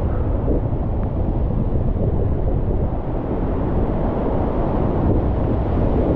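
Whitewater river rapid rushing as a steady, low-pitched roar of churning water, heard from a kayak entering the rapid.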